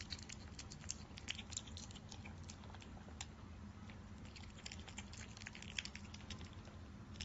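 Otter eating dry food pellets from a ceramic bowl: faint, irregular crunching and clicking of chewed and pawed pellets.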